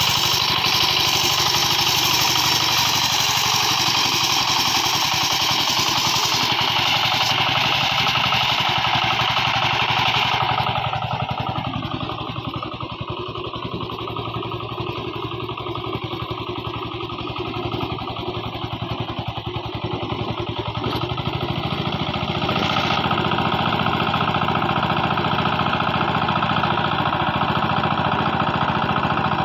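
Hand tractor's small single-cylinder engine running steadily under load as it pulls through a muddy rice paddy, with a fast, even firing chug. It is a little quieter for about ten seconds in the middle.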